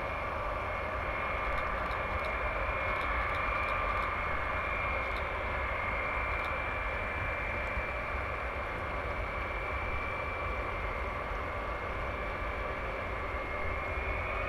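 Four JT3D turbofan engines of a Boeing E-8 Joint STARS running while it taxis: a steady jet whine over a low rumble. The whine rises in pitch near the end.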